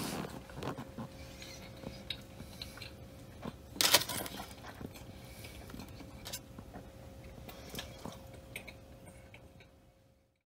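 A metal fork scraping and clinking in a foil-lined baking pan as it picks at cheese-covered wings, with a louder clatter about four seconds in.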